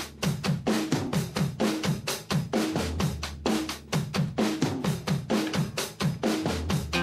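A drum kit playing alone, a fast steady beat of bass drum and snare at about five hits a second: the drum opening of a song.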